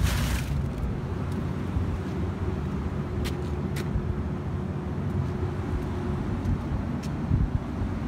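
A vehicle engine running with a low, steady rumble, a few light clicks over it.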